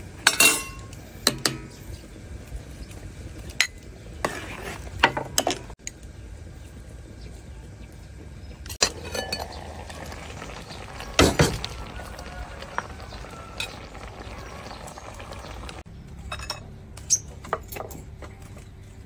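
Cookware clinking in a dozen or so scattered knocks: a metal ladle against an aluminium soup pot, then tongs against a clay pot and its lid, then a porcelain teapot and cup, with the loudest clinks about a third and halfway through.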